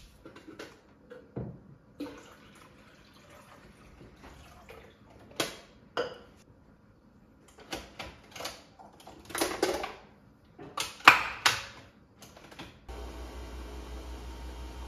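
Clicks and knocks of a Nespresso capsule coffee machine and a glass being handled as it is loaded. About thirteen seconds in, the machine starts brewing with a steady, pulsing mechanical hum.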